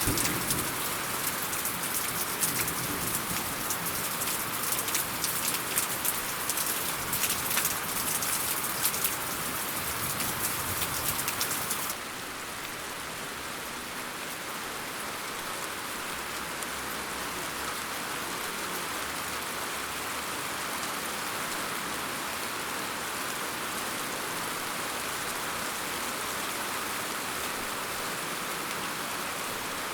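Steady rain falling. For the first dozen seconds many close drop impacts are heard over the hiss; then the sound switches abruptly to a smoother, slightly softer, even rain hiss.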